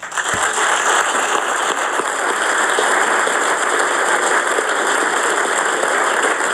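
Audience applauding, a steady wash of clapping that starts just after the introduction and does not let up.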